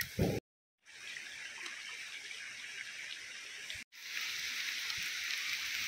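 Steady hiss of running water. It is broken by two abrupt edits: a half-second of silence just after the start, and a cut about four seconds in, after which the hiss is a little louder.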